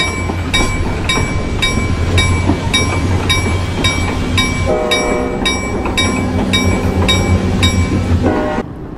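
Railroad crossing bell dinging steadily, about two and a half strokes a second, over the low rumble of a passing freight train. A short train horn sounds about five seconds in, and everything cuts off suddenly just before the end.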